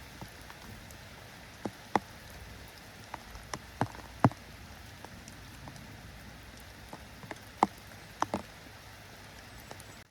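Steady drizzle with larger raindrops landing in irregular sharp taps on a hard surface.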